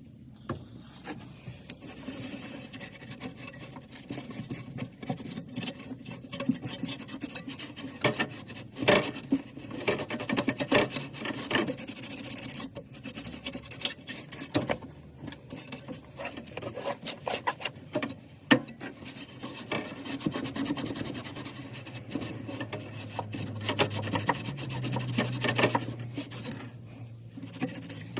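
Irregular rubbing and scraping with scattered sharp knocks and clicks; a low steady hum joins about three quarters of the way through and steps up slightly in pitch near the end.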